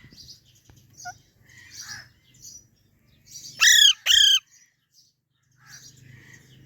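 Baby parrot making soft scattered chirps, then two loud squawks in quick succession, each falling in pitch, about three and a half seconds in.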